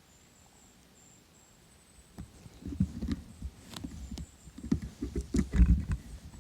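Irregular low thumps and rustling crackles, beginning about two seconds in and growing louder near the end, like steps or movement in dry leaves.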